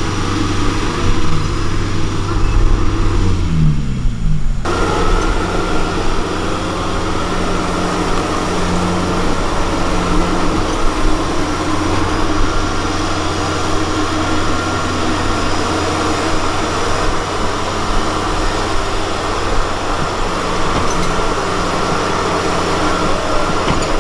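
Farm machinery's diesel engine running steadily under load. About three seconds in, one engine note falls in pitch, and a second or so later the sound changes abruptly to a denser, noisier steady drone.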